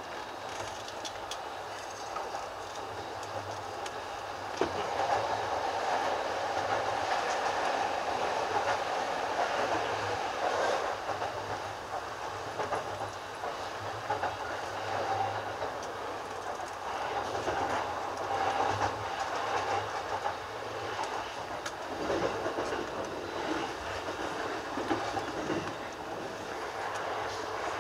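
Steady running noise of a JR East E233/E231-series suburban electric train moving along the line, with occasional short clacks of the wheels over rail joints.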